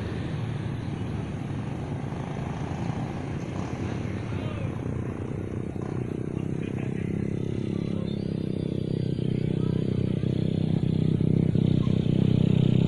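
Motor of a 1.2 m Edge sport balsa radio-controlled model plane in flight, a steady drone that grows louder through the second half as the plane comes closer.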